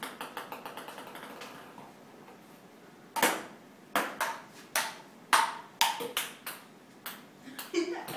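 Table tennis ball bouncing on the table, its bounces coming faster and fainter as it settles. About three seconds in, a sharp paddle hit starts a rally: quick hard clicks of ball on paddle and table, about two a second.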